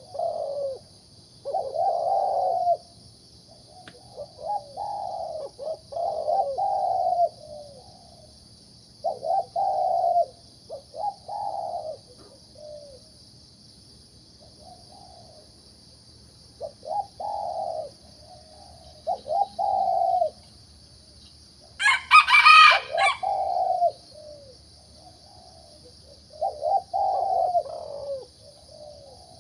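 Zebra dove cooing in repeated phrases of quick, rolling coos, a second or two each, with short gaps between. About 22 seconds in, a louder, harsher call with a higher pitch cuts in over it. A steady high-pitched drone runs underneath.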